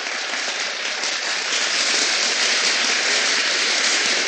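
Audience applauding: dense, steady clapping that grows slightly louder about one and a half seconds in.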